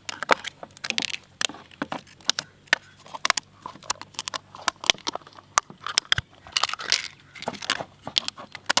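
Thin plastic lids being pulled off frozen ice-lolly cups one after another: a quick, irregular run of plastic clicks, snaps and crinkling.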